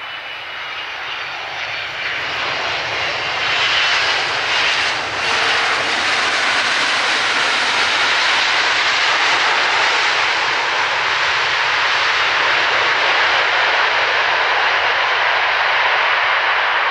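Jet engines of a large airliner: a loud, steady noise that grows over the first few seconds and then holds, with a faint high whine in the first few seconds.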